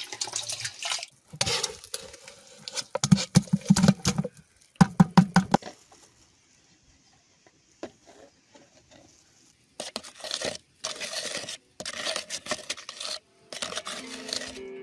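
A metal scoop digging and scraping lime out of a plastic barrel, in an irregular run of scrapes and knocks. After a few quiet seconds come more bursts of scraping and rustling as powdered pigment is handled and mixed.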